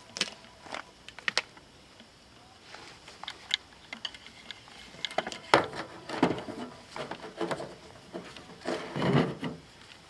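A plastic GFCI plug and its cords being handled on a metal surface: a few light clicks and knocks, then a longer stretch of rubbing and scraping as the plug is worked toward the power strip to be plugged in, loudest near the end.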